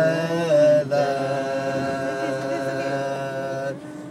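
Several voices singing together a cappella inside a car, holding long notes and sliding between pitches; the singing drops away briefly near the end.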